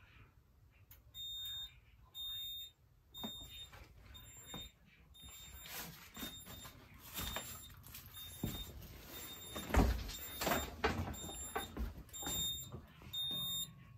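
Notifier NFS2-640 fire alarm control panel's trouble sounder beeping about once a second, a high tone in half-second pulses. The panel is in trouble because the smoke detector head has been taken off its base and no longer answers. Knocks and rustling from handling come in between the beeps, loudest about ten seconds in.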